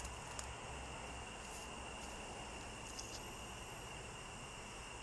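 Faint steady high-pitched chirring of crickets or grasshoppers over a low outdoor hiss, with a few faint clicks.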